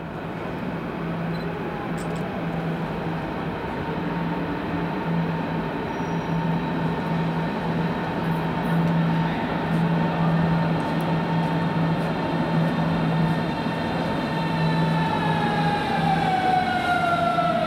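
Berlin S-Bahn class 481 electric train running into the station, its rumble slowly growing louder as it approaches. Its motor whine holds steady, then glides down in pitch over the last few seconds as the train slows for the platform.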